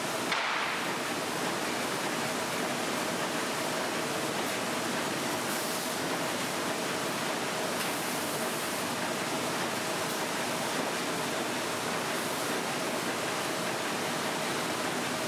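Steady machine noise of running print-finishing machinery, an even rushing sound with a faint steady hum underneath.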